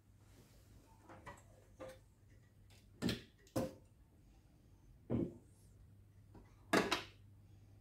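Knocks and clicks of the metal parts of a Lagomarsino Totalia electromechanical calculator being handled during removal of its body: the paper-roll holder is lifted off and set down on a wooden table. About six knocks, the loudest a pair about three seconds in and a double knock near the end.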